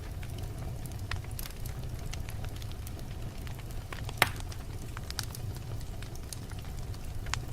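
Wood fire burning in a fireplace: a steady low sound from the flames with scattered sharp crackles and pops. The loudest pop comes about four seconds in.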